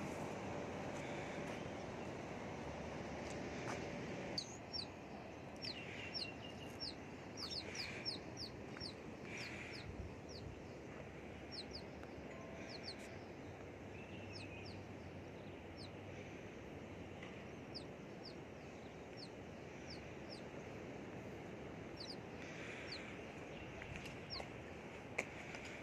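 Birds calling: many short, sharp, high chirps, each sliding downward, come in irregular runs starting a few seconds in, with a few lower calls among them. Under them runs a steady rushing background noise.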